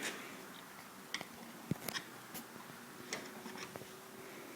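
Scattered light clicks and taps, several in about four seconds, from pressing a motorcycle fork snap ring around its groove to check that it is seated all the way around.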